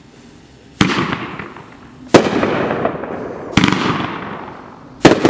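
Aerial shells from a 500g consumer fireworks cake (MadOx Velociraptor) bursting in the sky: four sharp bangs roughly one and a half seconds apart. Each trails off in a long fading rumble.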